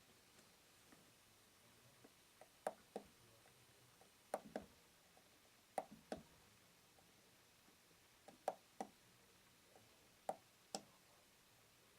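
Quiet room with light, sharp clicks coming in pairs: five pairs, each about one and a half to two seconds after the last.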